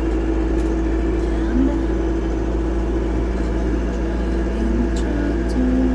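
Vehicle engine running at a steady speed with a constant low drone.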